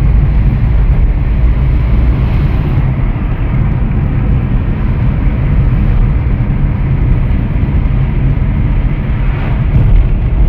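Steady low rumble of a car driving along, engine and tyre noise heard from inside the cabin.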